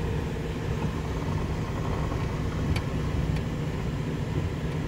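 A van's engine and tyres heard from inside the cab while driving: a steady low rumble, with two faint ticks about three seconds in.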